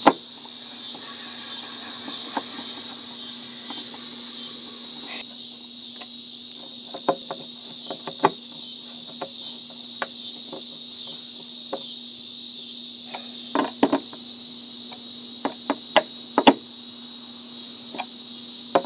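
Steady chorus of crickets, with scattered sharp metallic clicks and scrapes from a large screwdriver tightening stainless steel screws down into a flush-mount base plate, most of the louder clicks in the second half.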